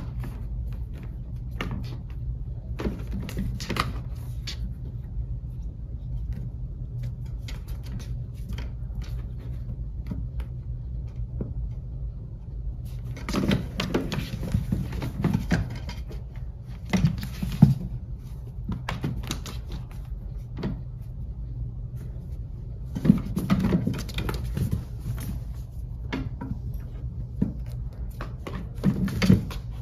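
A cat playing with a toy mouse on a wood-look floor, making scattered taps, knocks and scrapes as it bats the toy and bumps the legs of a wooden stand. The sounds come thickest in two flurries, around the middle and again a little later, over a steady low hum.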